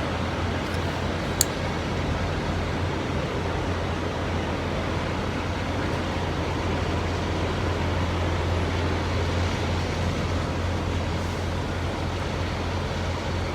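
Steady low vehicle-engine rumble with road noise, like an idling truck or nearby traffic, with one sharp click about a second and a half in.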